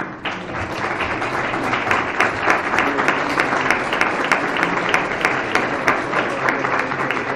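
Audience applauding. The clapping starts suddenly and goes on steadily as a dense patter of many hands.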